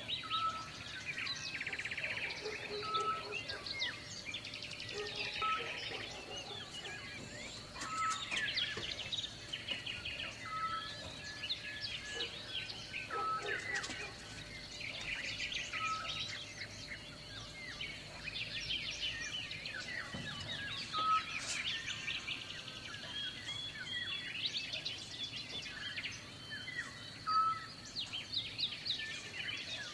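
Several birds chirping and trilling throughout, with one short call repeating about every two and a half seconds.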